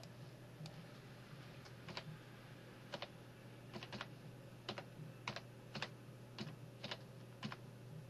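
About a dozen faint, sharp light clicks and taps at an irregular pace, over a low steady hum.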